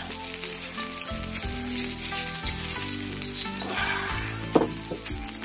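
Donkey intestines sizzling steadily as they fry on an iron griddle.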